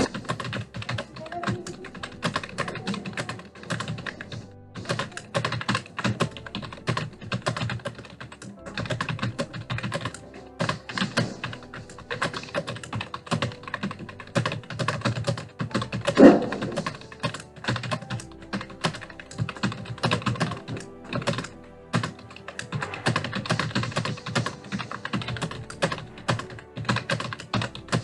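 Fast, continuous typing on a Prodot computer keyboard, key clicks following one another without pause, with one louder knock about sixteen seconds in.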